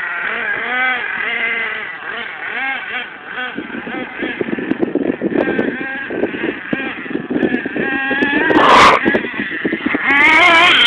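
Small engine of a radio-controlled off-road buggy, its pitch rising and falling as it revs up and down while driving. It is louder and higher-pitched toward the end as the buggy comes closer. A brief hissing burst comes about nine seconds in.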